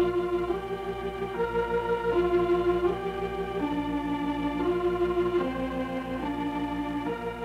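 Background music: an organ playing a slow melody of held notes over a steady lower accompaniment.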